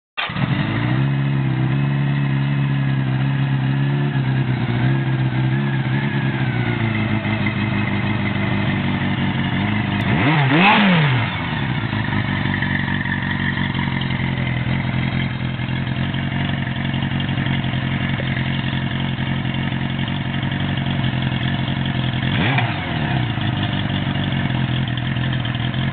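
1983 Kawasaki KZ750's air-cooled inline-four engine idling steadily. It is blipped once a little after ten seconds in, a quick rise and fall in pitch that is the loudest moment, and revved briefly again near the end.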